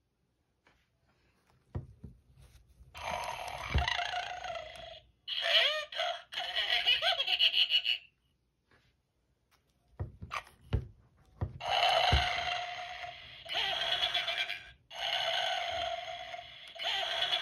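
Gemmy animated Scooby-Doo Santa toy playing its recorded snoring: a run of long snores starting about three seconds in, a pause, then another run from about twelve seconds on. A few short low thumps fall between the snores.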